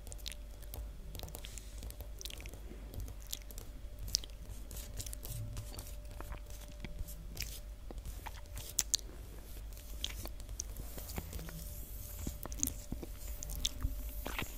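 Long fingernails tapping and scratching on a hard floor: quick, irregular sharp clicks, several a second, with a few louder taps about nine seconds in and near the end.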